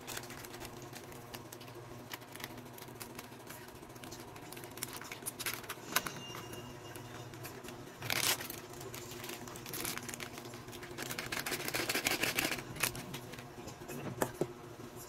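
Clicks, taps and rustles of hands working with a wire whisk in a stainless-steel bowl of flour and handling ingredient containers. Dense runs of rapid ticking come about eight seconds in and again from about eleven to thirteen seconds in.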